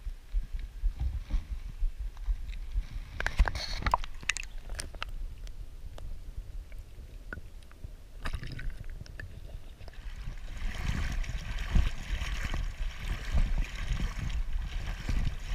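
Water splashing as a hand holding a bass plunges under the river surface, with a burst of sharp splashes about three seconds in. Muffled underwater gurgling and ticks follow while the microphone is submerged. A steady rush of sloshing water comes in near the end as it comes back up.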